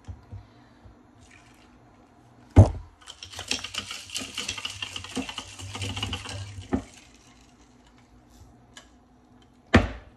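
A drink being stirred in a cup: rapid clinking and swishing for about four seconds, with a sharp knock just before it and single knocks after it.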